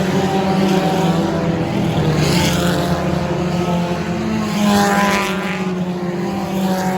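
Race cars running laps on a dirt oval, several engines droning together, with cars passing close by about two and a half and five seconds in, the pitch sliding down as each goes past.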